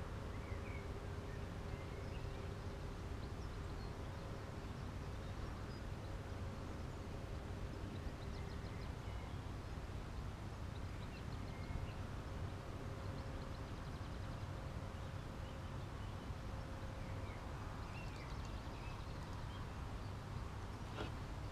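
Outdoor ambience: a steady low rumble with a faint hum, and faint scattered bird chirps throughout. A single short click sounds near the end.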